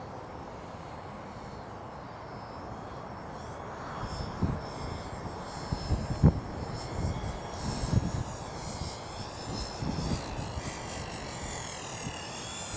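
Electric motor and propeller of a ParkZone Typhoon 2 RC plane whining in flight, the pitch rising and falling with the throttle and growing stronger toward the end. Gusts of wind buffet the microphone in low rumbles through the middle.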